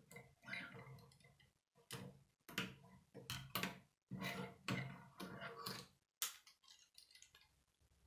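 Plastic K'nex rods and connectors clicking and snapping together as pieces are handled and fitted, an uneven series of short clicks and rattles.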